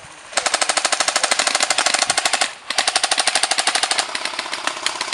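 Airsoft electric rifle firing on full auto close by: a burst of about two seconds of rapid, evenly spaced shots, a brief pause, then a second burst of about a second. Fainter automatic fire continues after it.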